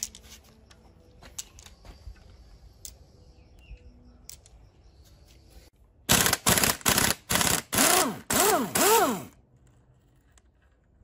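A power impact wrench hammering in about eight short, loud bursts, the last few with a whine that rises and falls as the tool spins up and down, loosening fasteners during engine and gearbox teardown. Faint taps and clicks of tools come before it.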